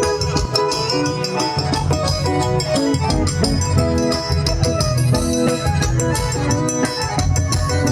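Live forró pé de serra played without singing: an accordion melody over a steady bass beat, with a fast ticking rhythm in the treble from the triangle.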